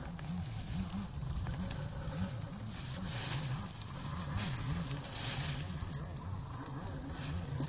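Dry reed stalks rustling and crackling as they are pulled down and handled, with irregular swells of rustle and a few sharp snaps, over a low wobbling rumble.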